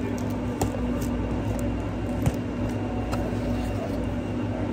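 Steady low hum of café equipment, with faint rustles and a few light clicks from ribbon and a paper cake box being handled; one sharper click about two seconds in.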